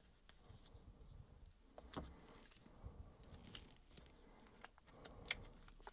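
Faint scattered clicks and taps of an action camera being handled and pushed into its mounting frame, with the loudest click near the end.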